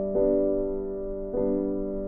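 Background music: slow, gentle piano chords, a new chord struck about every second.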